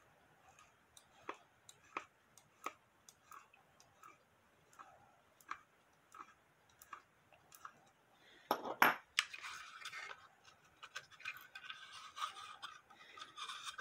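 A small screwdriver working screws out of a wooden novelty cuckoo clock case, giving light irregular clicks about two a second. About 8.5 seconds in comes a loud clatter, then scraping and light clinking as the case is pulled apart to free the clock movement.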